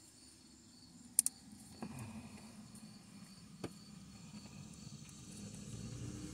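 Hands handling a wiring harness and plastic connector in a car's engine bay, engine off: a few small sharp clicks, the loudest about a second in, over a faint steady high-pitched background drone.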